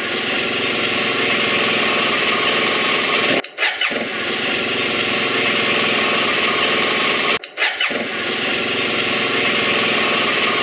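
Motor scooter engine sound effect starting and then running steadily, played three times in a row with short breaks about three and a half and seven and a half seconds in.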